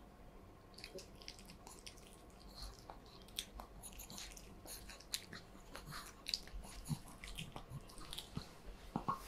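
A chihuahua's faint, close mouth noises: soft, irregular wet clicks and smacks, sparse at first and busier after about two seconds.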